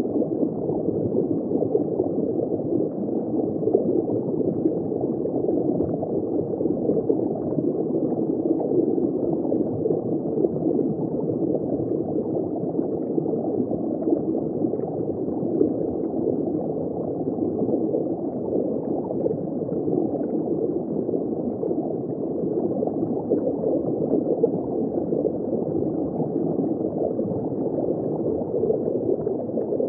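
Steady, muffled underwater bubbling noise, dull with no highs.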